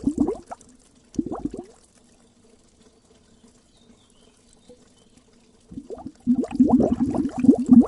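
Water bubbling in rapid gurgling pops. It dies away about half a second in, comes back as a short burst just after a second, then falls almost silent for about four seconds before starting again near six seconds and running on densely.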